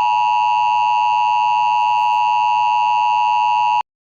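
Emergency Alert System attention signal: a loud, steady two-tone alarm held without a break, which cuts off suddenly just before the end.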